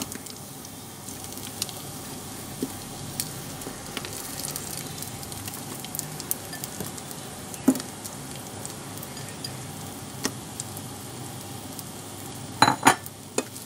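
Fried chicken wings sizzling steadily in a non-stick pan of hot oil with fried garlic, shallot and chili, as they are put back in to be coated in fish-sauce glaze. A few sharp clicks of utensils against the pan break through the sizzle, the loudest near the end.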